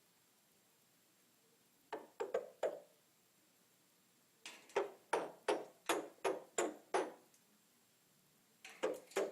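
African grey parrot making series of sharp knocking clicks, about three a second, in runs: a short run about two seconds in, a longer one of about eight clicks in the middle, and another starting near the end.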